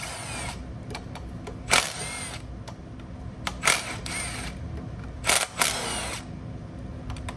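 Four short bursts of metallic clicking and clinking, about two seconds apart, each a sharp click with a brief ring. They come from hand tools and small 10 mm bolts being taken out of the water pump cover on a GM Ecotec engine.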